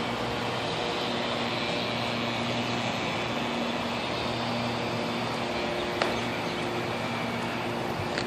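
A steady mechanical hum with a low, even-pitched drone, and a single sharp click about six seconds in.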